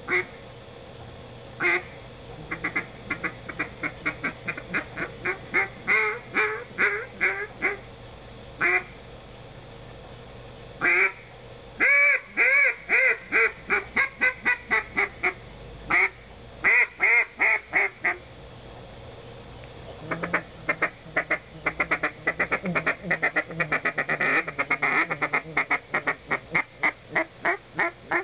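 BGB Death Whistle duck call blown by mouth, giving sequences of duck-like quacks: groups of short notes broken by pauses, a few longer single quacks, then a fast, dense run of short quacks from about twenty seconds in.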